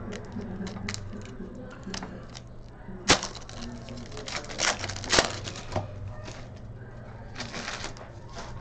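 Trading card packs and boxes being handled and torn open: a run of sharp clicks and crinkling, with two louder cracks about three and five seconds in and a burst of crinkling near the end, over a steady low hum.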